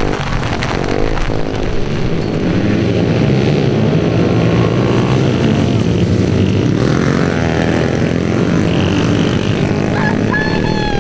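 Several small pit bike engines running and revving at once.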